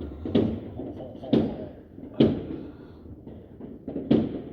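Firework explosions bursting one after another, four sharp bangs about a second apart, each trailing off in a short rumble, over a steady haze of more distant fireworks.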